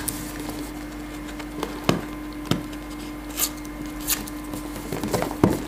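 Hands working open a cardboard smartphone box on a wooden table: a few scattered light taps and scrapes of cardboard, over a steady low hum.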